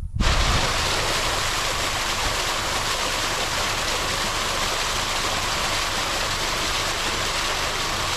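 Irrigation pump's outlet pipe gushing a thick jet of water into an earthen field channel: a loud, steady rush that starts suddenly a moment in.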